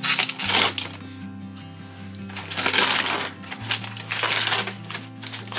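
Foil pouches and plastic packaging crinkling and rustling in several short bursts as they are pulled out of a toy package, over background music with a steady bass line.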